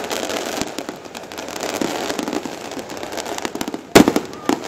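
Firecrackers going off: a rapid, irregular crackle of small pops, with one much louder bang about four seconds in.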